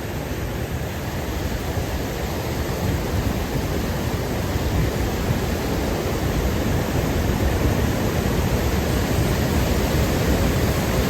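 Large waterfall (Elk Falls) rushing steadily at close range, a continuous loud rush of falling water that a speaker has to yell over.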